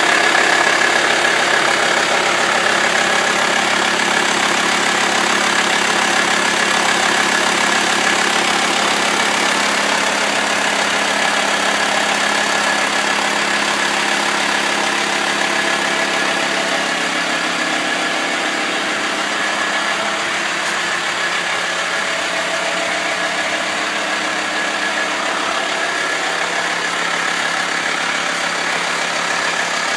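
VW T5 Transporter 4Motion's 2.5 TDI five-cylinder diesel engine running steadily, heard from beneath the van.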